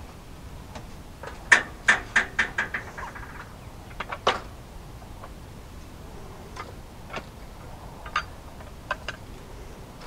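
Sharp metallic clacks and knocks from working a portable sawmill's log clamp and a cant hook against the log on the steel bed. A quick run of about six clacks comes about a second and a half in, then single knocks follow now and then.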